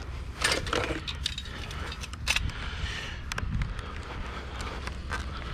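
Hands rummaging through discarded items: scattered light clicks, knocks and rattles, over a steady low rumble.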